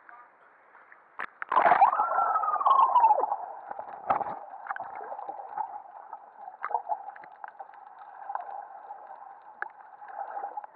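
Muffled underwater sound of swimmers in the sea, picked up by a submerged camera: water churning and bubbling with a brief rising-and-falling whine about two seconds in, then a steady hum with scattered knocks.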